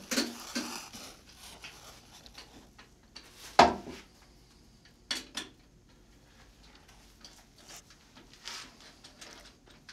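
Scattered clinks and knocks of metal tools and a wooden bowl being handled at a stopped electric lathe as the bowl comes off the chuck, with one louder knock about three and a half seconds in.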